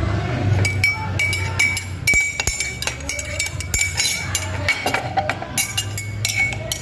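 A spoon stirring hot water in a cup, clinking against the side about three times a second with a short ringing note each time, to dissolve Snow Bear mint candies.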